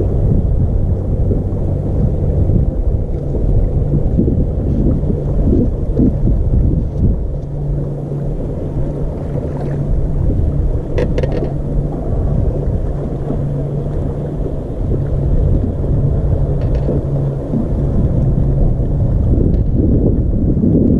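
Wind buffeting the microphone on an open boat deck, a heavy low rumble, with a low steady hum that drops in and out several times and a brief cluster of faint clicks about halfway through.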